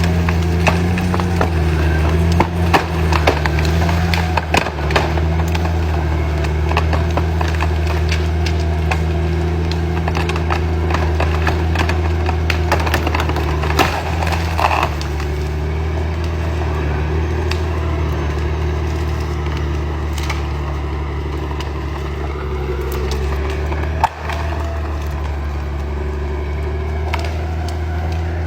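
Caterpillar D9T bulldozer's diesel engine running steadily while wood cracks and splinters under it, the snapping densest in the first half.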